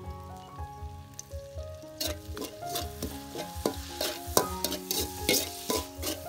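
Food sizzling as it fries in a pan, starting about two seconds in, with a spoon stirring and scraping against the pan in quick strokes, over background music.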